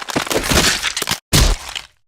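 Gore sound effect of cracking and crunching, like bones breaking: a dense crackling stretch, then one heavy crunching hit just past halfway that fades quickly.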